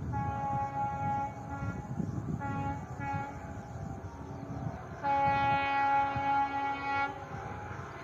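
Indian Railways WDP 4D diesel locomotive sounding its air horn in a series of blasts: a blast at the start, two short toots in the middle, then a loud blast of about two seconds near the end. A low rumble runs underneath.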